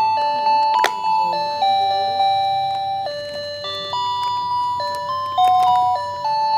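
A battery-powered toy ice cream cart's electronic sound unit playing its jingle: a simple melody of plain, beeping notes that step up and down. A couple of sharp clicks come through as its button and plastic are handled.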